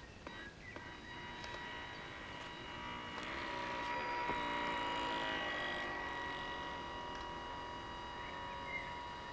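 Small electric drive motor of a 3D-printed RC boom dozer boat, a steady high-pitched whine as it pushes a raft of logs. It swells, with churning propeller wash, as the boat passes close about four to five seconds in, then fades.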